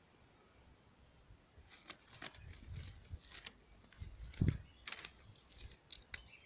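A person pushing on foot through dense undergrowth: irregular rustling and crackling of leaves and twigs, with footfalls and one heavier thump about halfway. The first second and a half is quiet apart from faint cricket chirping.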